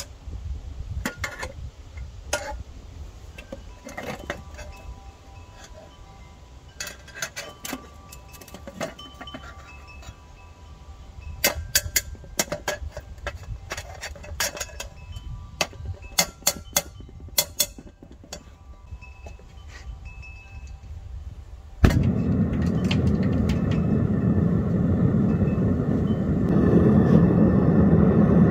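Small pieces of silver clinking against each other and against a hard surface, many light clinks with a short ringing note. About two-thirds of the way in a sudden pop starts a steady rushing noise, the loudest sound here, which grows louder near the end.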